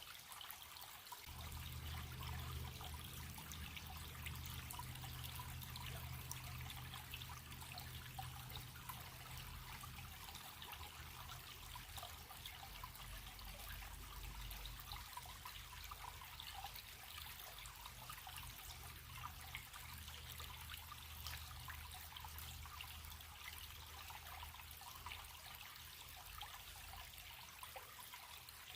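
Running stream: a steady rush of water with a fine, speckled texture. A low rumble comes in suddenly about a second in and carries on underneath.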